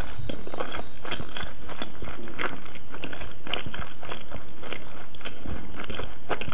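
Chewing a large mouthful of jjajangmyeon (black bean sauce noodles) with the mouth closed: a run of short, irregular mouth sounds a few times a second.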